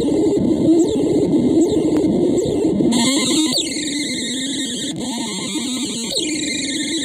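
The Demon Infinite, a hand-built experimental noise machine wired with alligator-clip leads, putting out a dense, harsh drone of noise. About three seconds in, a brighter hiss joins, and short falling swoops cut through twice.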